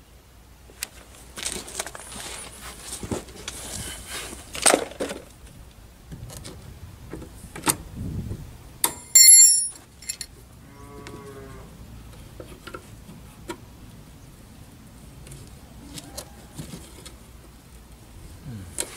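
A spanner clicking and scraping on a corroded mud-guard bolt under a Land Rover's wheel arch, with a short, loud metallic ring about nine seconds in. Just after it, a cow moos once.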